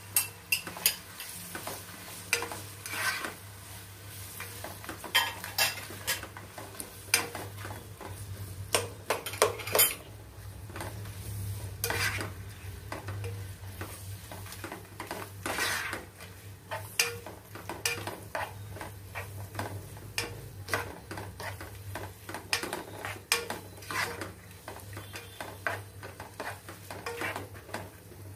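A spoon stirring chopped tomatoes and onions as they fry in a pan: irregular scrapes and knocks of the spoon against the pan over a soft sizzle.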